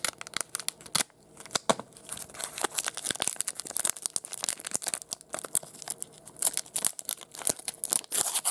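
Trading card pack wrapper being torn open and crinkled by hand, with a run of sharp crackles that grows denser after the first couple of seconds.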